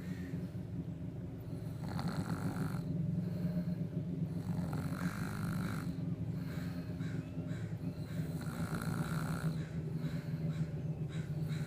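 A man snoring in his sleep: a low rattling snore that swells breath after breath, about every three seconds.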